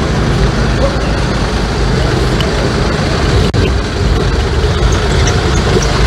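Steady street noise with a vehicle engine running close by.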